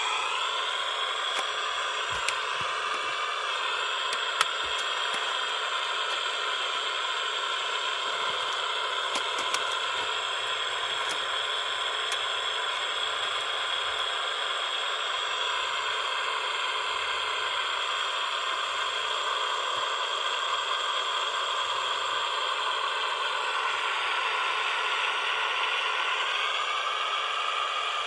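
Steady static-like hiss with a few faint clicks.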